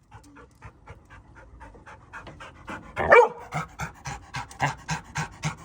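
A dog panting rapidly, about five breaths a second, growing louder toward the end, with a louder pitched sound about three seconds in.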